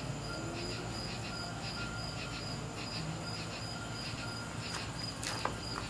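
Crickets chirping: short, high chirps repeated several times a second, over a low steady hum.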